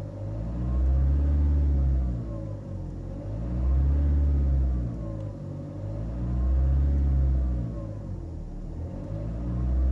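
Nissan X-Trail 2.0 diesel engine revved and let fall back about three times, a fourth rev starting near the end, with a turbocharger whistle that rises and falls with engine speed. The owner suspects the whistle comes from unbalanced or damaged turbine blades.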